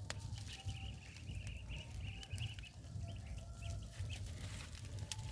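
A chicken clucking and calling in a choppy, warbling run through the first half, with a few short calls later, over a few sharp crackles from a wood fire and a low rumble of wind on the microphone.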